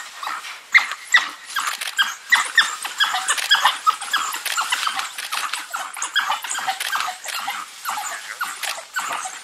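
A pack of African wild dogs giving rapid, overlapping high-pitched twittering calls, many short falling chirps a second: the excited calling of a pack attacking prey.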